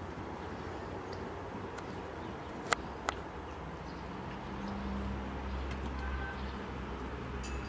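Two sharp clicks at a portable stove, a little under half a second apart, as the pot on it is handled. A low steady rumble follows from about halfway.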